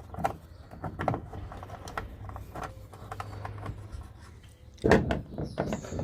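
Scattered light clicks and knocks of a plastic tail light assembly being handled and set back into a pickup's body, with the loudest knocks about five seconds in.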